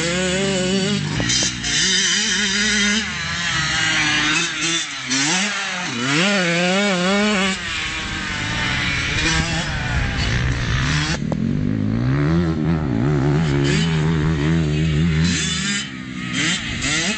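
Kawasaki KX85 two-stroke motocross bike riding around a dirt track, its engine revving up and dropping again and again as it accelerates and shifts. A few seconds past the middle the engine holds a steadier, lower note before revving again.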